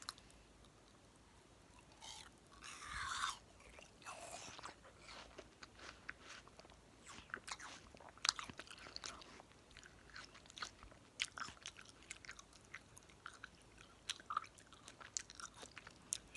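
Biting into and chewing juicy watermelon close to the camera's microphone: two longer wet bites or slurps about three and four seconds in, then a run of many short smacking, crunching clicks of chewing.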